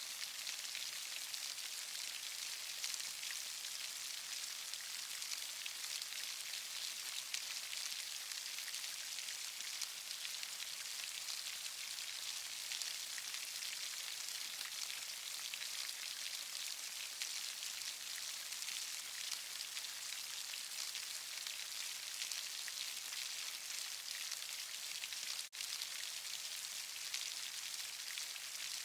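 Steady rainfall: a dense, even hiss of many small drops striking a surface. The sound cuts out for an instant about 25 seconds in.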